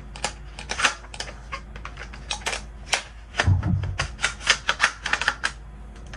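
Metal parts of a Benelli M4 shotgun being handled and fitted together during reassembly: a quick, irregular run of metallic clicks and clacks, with a duller knock about three and a half seconds in.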